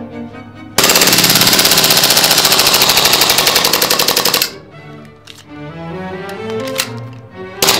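VFC-based Glock 18C gas blowback airsoft pistol with an RST steel slide firing one long full-auto burst of about three and a half seconds, starting about a second in: a fast, even rattle of shots and slide cycling that stops as the magazine runs empty.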